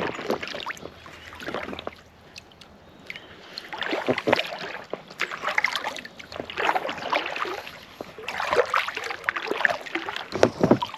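Packraft being paddled: paddle blades dip and pull through the water in bursts of strokes, with splashing and dripping and short pauses between the bursts.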